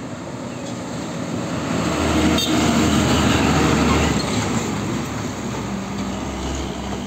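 A loaded Hino Ranger 500 dump truck driving past at close range: diesel engine and tyre rumble that builds to its loudest as the truck passes, about two to four seconds in, then fades as it pulls away. There is one short click as it goes by.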